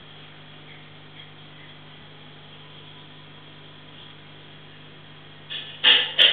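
Steady low electrical hum of aquarium equipment. Near the end come two short, loud bursts of noise.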